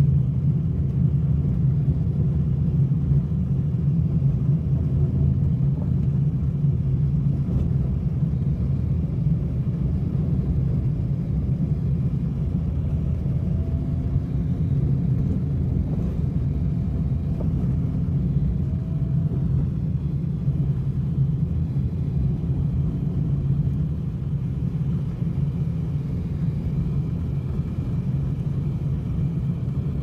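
A car driving along an unpaved dirt road, heard from inside the cabin: a steady low rumble of the engine and tyres on the rough surface.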